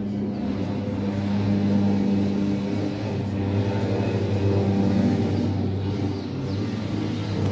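Small DC hobby motor spinning a plastic propeller fan, running with a steady hum.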